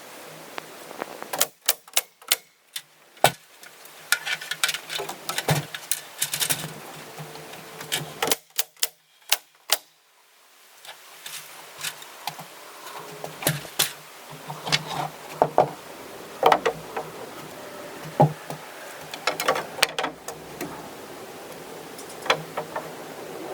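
Carpentry work on wood framing: a run of irregular sharp knocks and taps, with a faint steady hum underneath.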